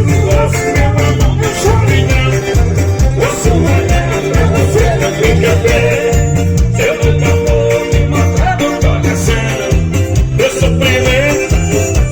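Forró music playing loudly, with a steady, driving bass beat under a melody line.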